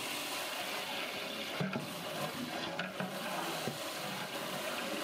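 Whole spices sizzling in hot oil in a large aluminium pot, with a metal ladle stirring and knocking against the pot a few times.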